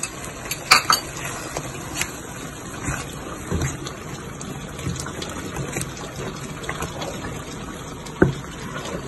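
Wooden spatula stirring yogurt into a sizzling tomato-onion masala in a steel pan, over a steady hiss from the sauce. A few sharp knocks of the spatula against the pan, the loudest just under a second in and near the end.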